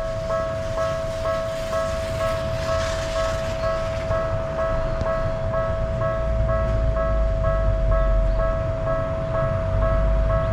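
Japanese level-crossing warning bell ringing its 'kan-kan' in an even rhythm of about three strikes a second, over a steady tone. A low rumble of a passing train swells in about six seconds in.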